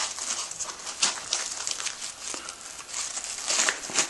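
Nylon MOLLE webbing and a Tac-Tie strap rustling and scraping as the strap is pushed and pulled through the loops of a pack, in irregular scratchy strokes.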